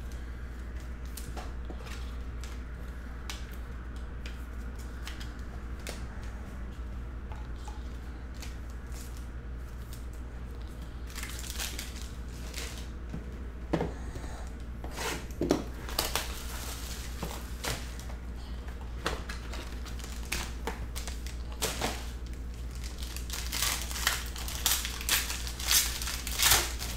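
Crinkling and tearing of packaging as a sealed trading-card box is unwrapped and its foil pack wrapper ripped open, starting about a third of the way in and growing busier near the end, over a low steady hum.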